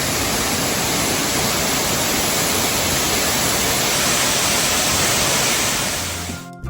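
Steady rush of a waterfall running with good flow, fading out near the end as music comes in.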